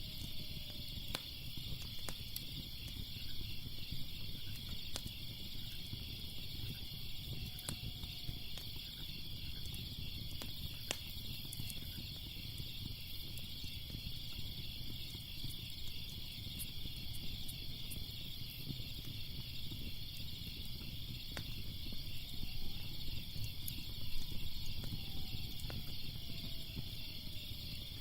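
Crackling fire with scattered sharp pops and a low rumble, over a steady chorus of crickets chirping.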